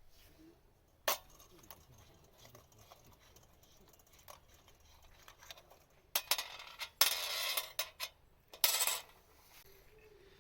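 Handling noise of small hard objects: a sharp click about a second in, scattered light clicks, then a cluster of clattering and scraping bursts between about six and nine seconds in.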